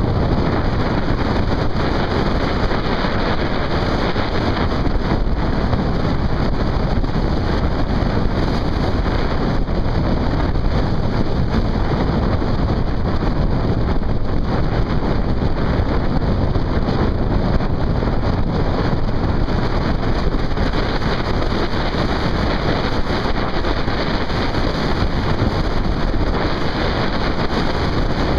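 Steady, loud wind rush on the microphone of a vehicle moving at road speed, with engine and tyre noise mixed in underneath.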